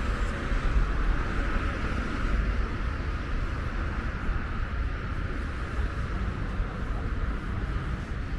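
Steady city road traffic with a low rumble and no single vehicle standing out.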